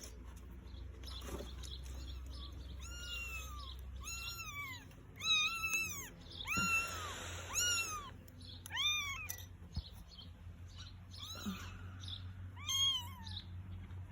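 Newborn kittens mewing: a string of a dozen or so short, high-pitched, arching cries, starting about three seconds in.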